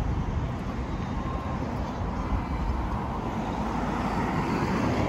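Road traffic noise: a steady, rumbling wash of passing vehicles, swelling slightly near the end.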